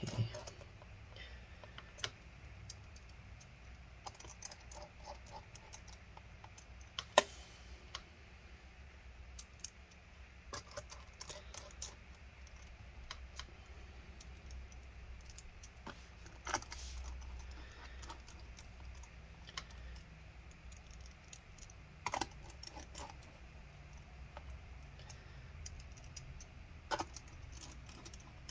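Pentalobe screwdriver driving the small bottom-case screws back into a MacBook Air's aluminium bottom panel: faint, scattered clicks and taps of the driver, the screws and the fingers on the case, with a sharper click about seven seconds in.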